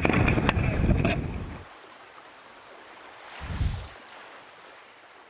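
Wind and water noise outdoors, heavy and rumbling with a few sharp clicks for the first second and a half, then dropping to a faint hiss, with one brief gust or splash about three and a half seconds in.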